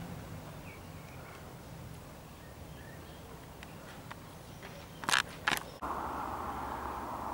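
Quiet outdoor ambience with a few faint bird chirps. Two short, sharp noises about half a second apart come near the end, followed by a steadier hiss.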